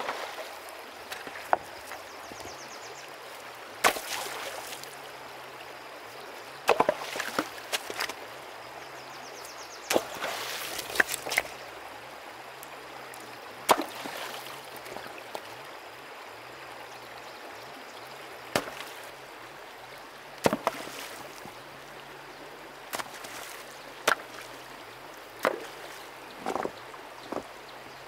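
River stones being lifted and set down on other stones in a shallow stream: sharp clacks of rock on rock at irregular intervals, some with a short splash, over the steady rush of running water.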